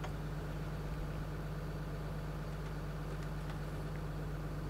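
A steady low engine hum that holds even throughout, with a few faint light clicks near the start and about three seconds in.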